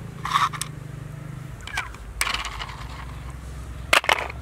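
Plastic toy car handled and dropped into a plastic basket: scraping and rustling handling noises, then sharp clattering clicks about four seconds in as it lands. A low steady hum runs underneath.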